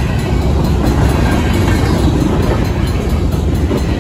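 Freight train covered hopper cars rolling past: a steady, loud low rumble of steel wheels on the rails.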